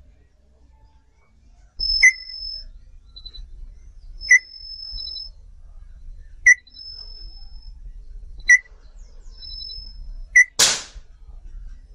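A short, sharp chirp followed by a thin high whistle, repeating about every two seconds. About ten seconds in comes one loud, hissing crack, the loudest sound: an air rifle fitted with a 55 kg gas ram firing a pellet.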